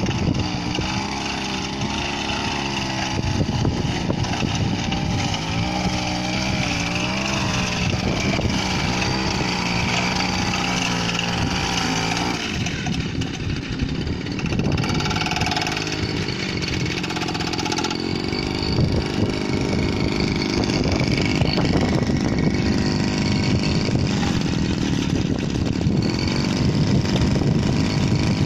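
Small 30cc engine of a rice-paddy power weeder running steadily, its pitch wavering up and down as the load changes, with a shift in the engine note about twelve seconds in.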